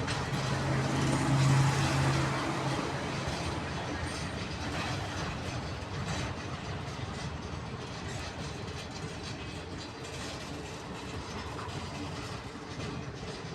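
TEM2 diesel shunting locomotive running, a low steady engine hum loudest about one and a half seconds in, then easing to a steadier, quieter rumble.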